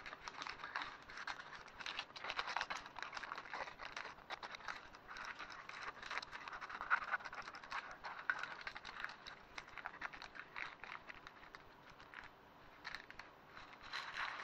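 Spatula scraping and tapping on a plate and crinkling baking paper as it is worked under cheese-topped egg bagels: a quiet, irregular run of small scrapes, clicks and rustles.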